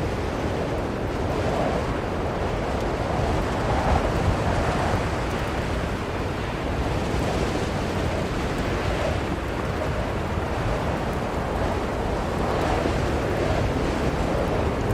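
Blizzard wind blowing steadily, a dense rushing noise that swells and eases in slow gusts every few seconds.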